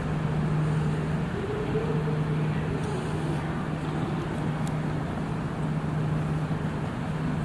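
Railway station ambience: a steady low mechanical hum over an even background of noise, with a brief faint higher tone a couple of seconds in.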